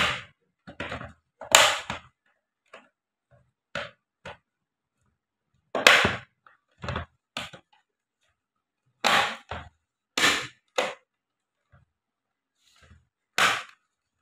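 Plastic guard cover of an LED monitor being pressed onto the chassis, its clips snapping into place in a series of sharp, irregular clicks and knocks about a second apart.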